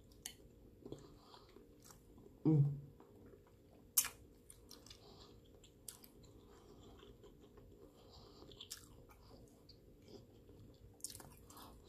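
Close-miked chewing of a garlic shrimp dipped in alfredo sauce, mouth closed, with small wet clicks and smacks scattered throughout. About two and a half seconds in there is one short hum that falls in pitch.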